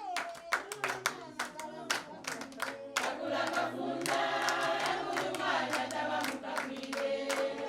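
A group of people singing together in chorus, with many hand claps keeping time.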